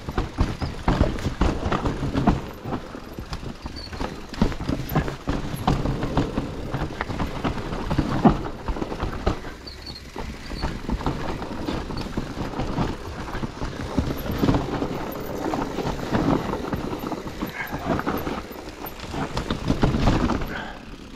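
Enduro mountain bike riding down a root-covered trail, its tyres knocking over roots and the bike clattering irregularly.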